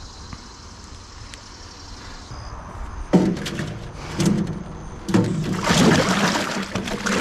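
Water splashing and sloshing in a galvanized metal tub as a dog is dipped in flea dip. A sudden loud splash about three seconds in, then continuous splashing from about five seconds in as hands scoop the dip over the dog.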